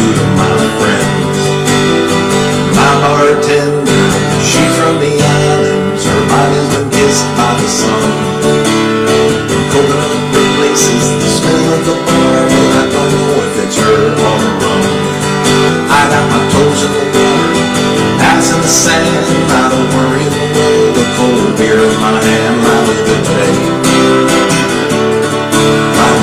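Acoustic guitar strummed in a steady rhythm, its chords ringing on without a break.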